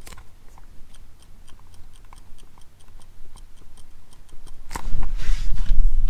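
Light clicking, about four clicks a second, from the loose rubber isolator on the factory shifter of a G56 manual transmission as the shifter moves. The owner hopes this loose isolator is the cause of the crunching noise going into fifth gear. Near the end a loud low rumble of handling noise takes over.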